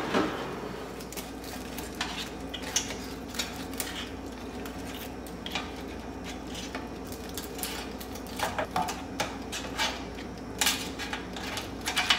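Metal tongs clinking and scraping against an air fryer's basket as whole fried tilapia are turned over: scattered light clicks, with a few louder clusters past the middle.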